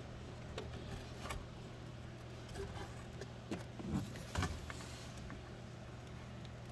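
Wire-harness cables and small plastic connectors being handled on a circuit board: a few light clicks and rustles, with the loudest knocks about four seconds in. A steady low hum runs underneath.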